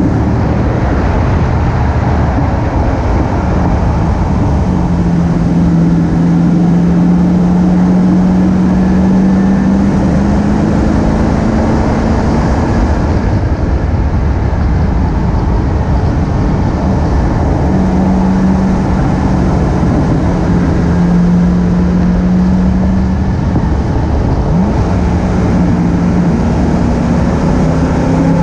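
Car running at track speed, its engine note steady under heavy wind and road noise. The engine tone fades away about 13 seconds in, as the car goes through a corner, and comes back about five seconds later.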